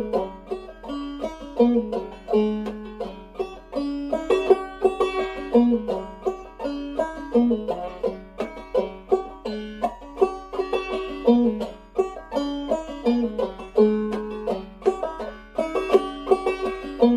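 Clawhammer banjo in fDGCD tuning playing an old-time fiddle tune, a steady, even stream of quickly decaying plucked notes.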